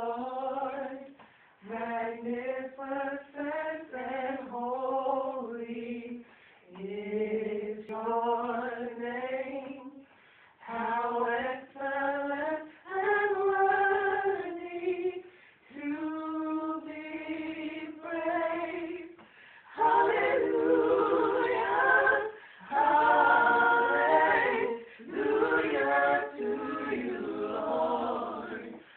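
Unaccompanied praise singing: held, sliding sung phrases with short breaks between them. From about twenty seconds in the singing grows louder and fuller as more voices join.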